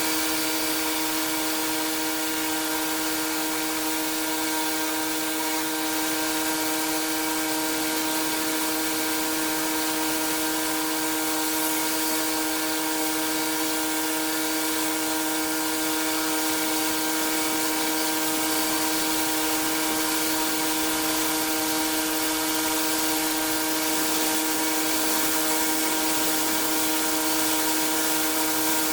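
Pressure washer running steadily: a constant pitched drone from the machine together with the hiss of the high-pressure water spray.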